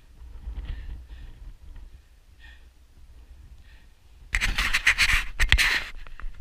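Loud scratching and scraping close to the microphone, starting about four seconds in and lasting a couple of seconds: a gloved hand scrambling on rock right beside the camera. Before that there is only a faint low rumble.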